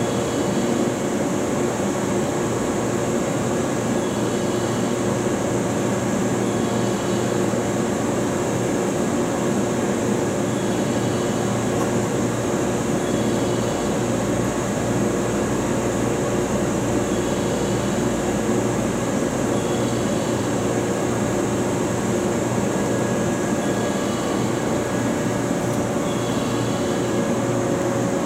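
A JNR-era express-type electric train standing at the platform with its onboard auxiliary machinery running: a steady hum with several constant tones and a high, even whine.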